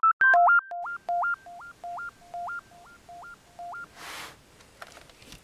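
Electronic intro jingle: short synth beeps that jump up an octave, repeating about every 0.6 s and fading away like an echo. About four seconds in comes a brief soft rush of noise, then a few faint clicks.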